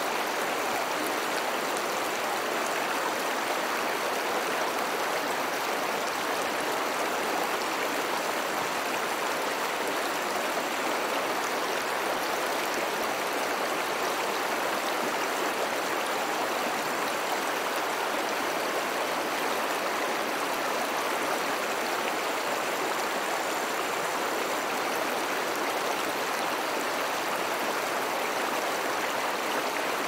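Mountain river flowing: a steady, even rush of water with no breaks or separate sounds.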